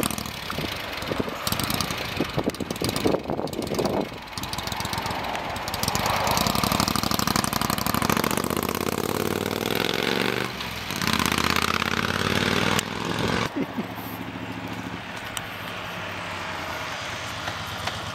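Moto Guzzi V-twin motorcycle pulling away and accelerating up through the gears, the engine pitch rising and dropping with each shift. After an abrupt change about two-thirds of the way in, a second motorcycle's engine runs more steadily as it approaches.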